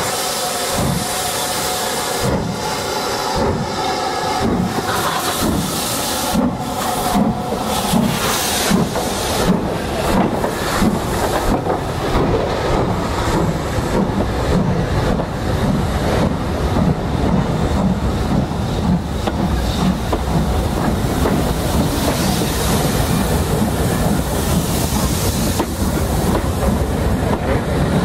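BR Standard Class 5MT two-cylinder steam locomotive working hard under load, its exhaust beats quickening as it gathers speed, with steam hissing. Near the end the coaches' wheels clatter past over the rail joints.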